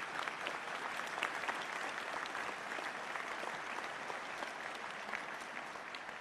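Crowd applauding, a steady round of dense clapping.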